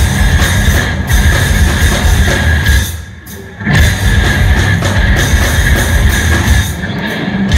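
Live hard-rock band playing an instrumental passage with electric guitars, bass guitar and drum kit, with no vocals. The band drops out briefly about three seconds in, then comes back in at full volume.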